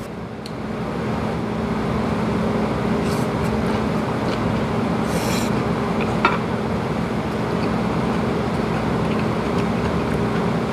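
Steady hum of restaurant kitchen machinery, with a few faint clicks of chopsticks against dishes.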